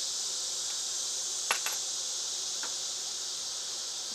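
Steady high-pitched chorus of katydids, with two light clinks about one and a half seconds in and a fainter one shortly after.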